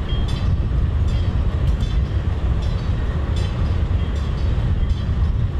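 Diesel locomotive rumbling steadily, with no break in the sound.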